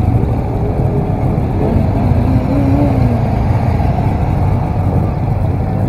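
Many motorcycle engines idling and running at low speed in a dense pack of bikes, a steady low rumble with faint rising and falling engine tones in the mix.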